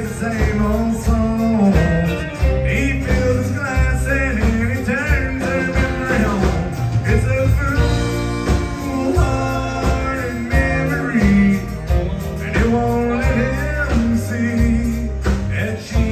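Live country band playing, with a fiddle's wavering melody over acoustic guitar, drums and bass.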